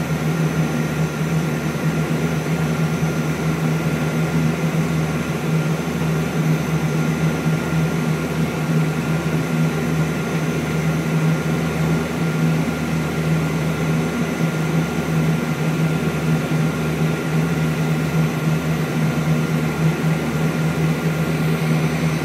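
Steady low drone of an ATR 42's twin turboprop engines and propellers, heard from inside the cockpit on the landing approach. A faint, thin, steady high tone sits over the drone.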